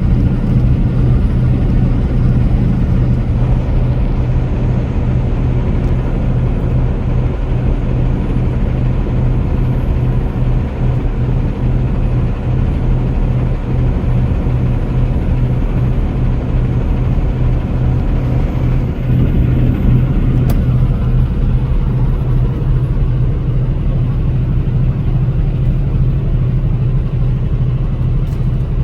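Vehicle cruising at highway speed: a steady low engine drone with road and wind noise, holding even throughout.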